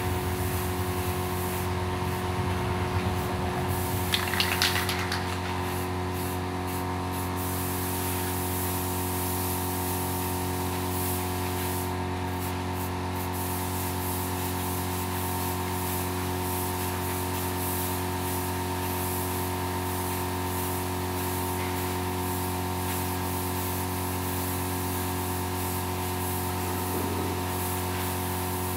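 Aerosol spray-paint can hissing as paint is sprayed onto a statue, in long sprays broken by a few short pauses in the first half, over a steady mechanical hum.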